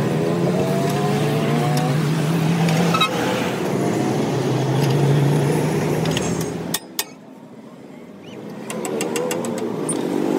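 Passing road traffic: vehicle engines running, one with a rising engine note as it accelerates in the first two seconds. About two-thirds through the sound drops off abruptly after two sharp clicks, leaving quieter background noise that slowly builds again.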